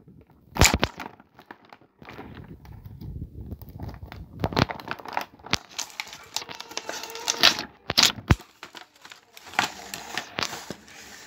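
Thin clear plastic packaging bags crinkling and being torn open by hand, with several sharp crackles and snaps.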